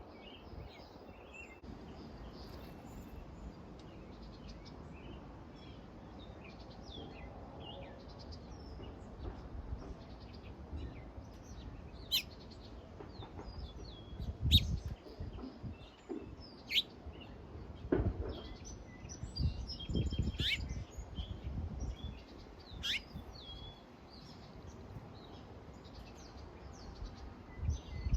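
Birds chirping and calling, with several sharp, quickly falling high calls in the second half, over a few low rumbling gusts.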